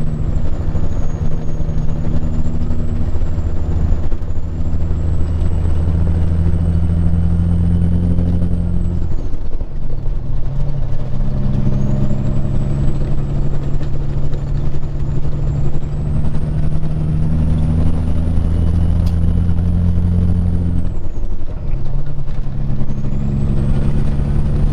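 Peterbilt 379 semi truck's diesel engine pulling hard up a highway on-ramp, with a shift about nine seconds in and another about twenty-one seconds in: each time the engine note drops off, then picks up again. A high whine rises and falls with the engine.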